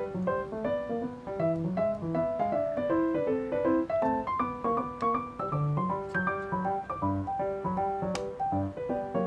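Background piano music: a gentle melody of short held notes over a bass line.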